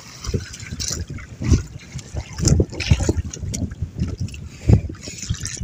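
Choppy sea water splashing and slapping against the hull of a small outrigger boat, in irregular thumps and surges.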